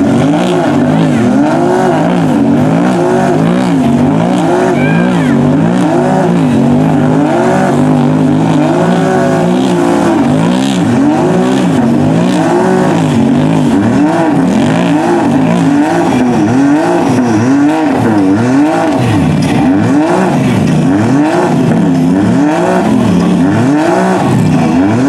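Two side-by-side UTV engines revving hard, over and over, their pitch rising and falling about once a second, as the machines spin their tyres and churn mud while bogged down in a deep mud hole.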